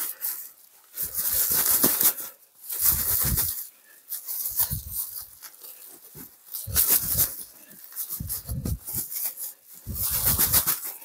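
Woven sacks of fermenting rice-bran bokashi being rolled and kneaded by hand, rustling in about six bursts with short pauses between. The kneading breaks up bran that has set hard as it ferments.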